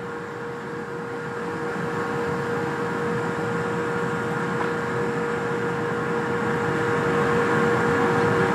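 Steady outdoor city hum of traffic and machinery, with one held mid-pitched tone, growing slowly louder.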